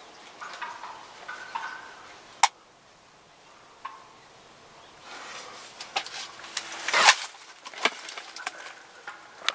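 Wild turkeys calling with short, sharp alarm putts and clucks for the first couple of seconds. A single sharp click comes about two and a half seconds in, then from about five seconds in there are bursts of rustling and crashing, loudest around seven seconds.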